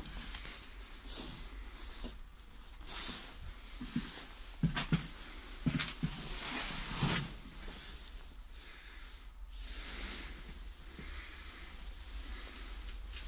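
Rustling hiss and scattered knocks from a handheld phone being moved around a bus driver's cab, over a steady low hum.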